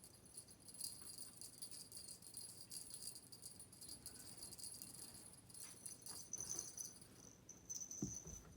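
A small bell jingling faintly in quick, irregular shakes as a kitten plays and bats with its paws, with a soft low thump near the end.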